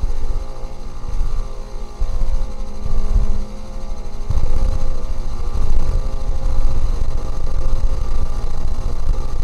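Composed sound score: a deep rumbling drone that swells and drops irregularly, louder from about two seconds in and again from about halfway, over a layer of steady higher tones.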